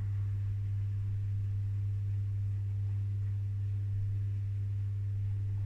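A steady low electrical hum: one deep, unchanging tone with faint higher overtones.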